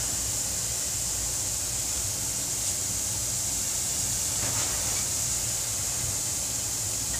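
Bath bomb fizzing as it dissolves in bathwater: a steady hiss that neither builds nor fades.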